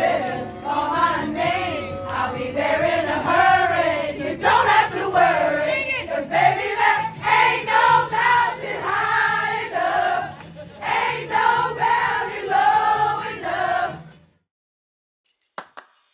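A group of voices singing or chanting together loudly, cutting off abruptly about fourteen seconds in.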